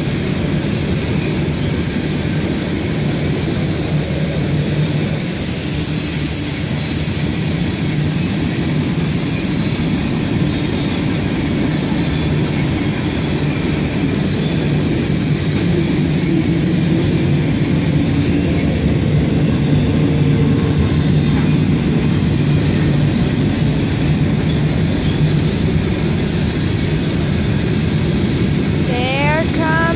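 Freight train cars rolling past in a steady rumble of wheels on rail, without a break.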